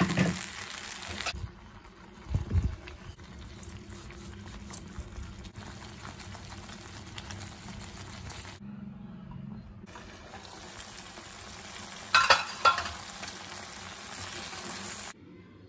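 Butter chicken gravy simmering and sizzling in a frying pan, a steady hiss broken by a few sharp clicks and knocks, the loudest a pair about 12 seconds in.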